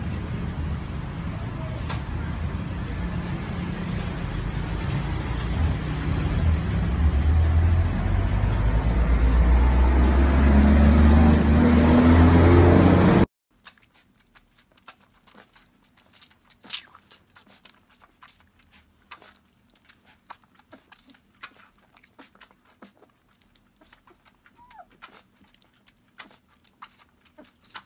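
A loud, low noise that grows louder and cuts off suddenly about 13 seconds in. Then a puppy suckling from a small feeding bottle: many faint, irregular wet clicks and smacks.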